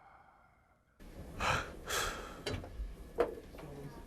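A man's recorded snoring: after about a second of near silence, two noisy rasping breaths, then short sharp throaty snorts, the loudest near the end.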